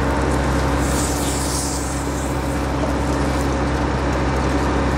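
Fire engine's diesel engine running steadily, a low drone with a few constant tones over it, with a brief hiss about a second in.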